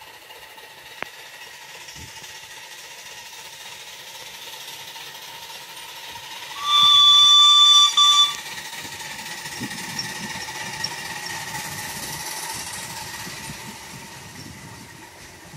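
Miniature vertical-boiler steam locomotive's whistle: one high, steady blast of about a second and a half, then a short second toot just after it, midway through. A low rumble follows as the small train runs past.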